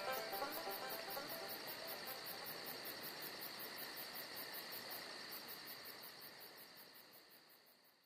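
Crickets chirping in an even, fast pulse, fading out toward the end; the last notes of a plucked-string tune die away in the first second.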